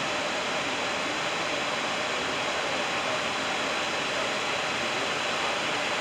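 Steady rushing of a wide river waterfall cascading over rock ledges.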